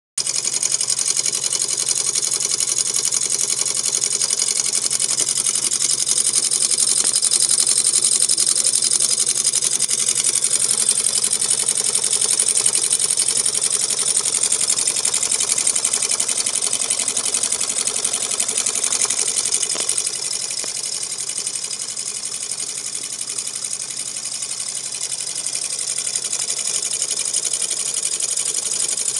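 Homemade high-speed hybrid hot-air engine built from tin cans, running steadily with a fast, even mechanical clatter as its flywheel spins. It gets a little quieter about twenty seconds in.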